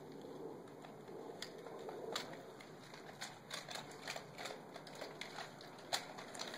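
A dog's claws clicking irregularly on a concrete slab as it walks and mouths a plush chicken toy, a dozen or so sharp ticks spread over a faint background hiss.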